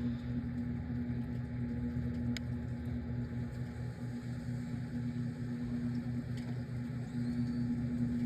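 Microwave oven running with a steady electrical hum while heating a banana peel, with two faint clicks from inside.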